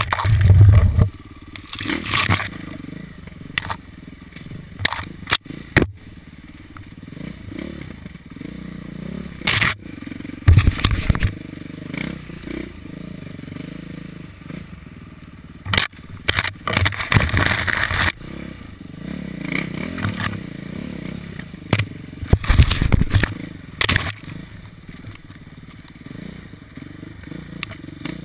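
Dirt bike engine running over rough trail, with several loud surges of throttle and many sharp knocks and clatters from the bike over the ground. It settles to a lower, steadier run for the last few seconds.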